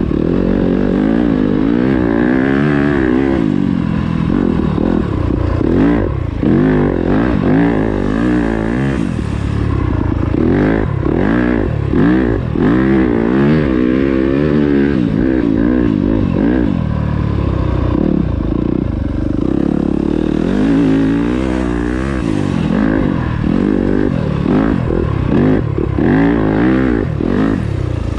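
Yamaha YZ250FX dirt bike's 250 cc single-cylinder four-stroke engine being ridden hard off-road, its pitch rising and falling constantly with the throttle.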